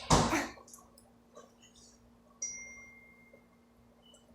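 A single clear bell-like ding about two seconds in, starting sharply and fading out within a second. Just before it, at the very start, a brief loud rustle or bump.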